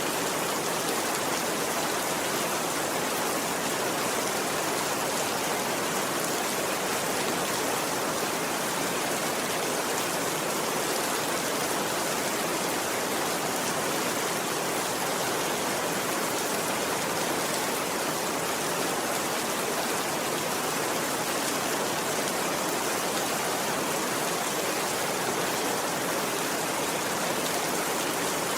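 Steady rain falling, a constant even hiss that does not change.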